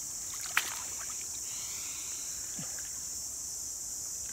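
Water sloshing and splashing as the mesh fish trap is handled and moved in a shallow stream. A steady high insect drone runs underneath, and there is one sharp click about half a second in.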